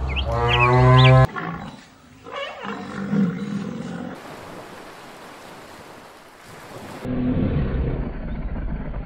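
A cow mooing once for about a second, loud and drawn out. Then a shorter animal call, a stretch of hiss, and a lion's low growl over the last two seconds.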